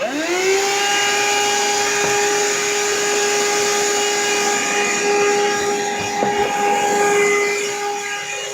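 Vacuum cleaner switched on, its motor whine rising quickly to speed and then running steadily over a rush of air.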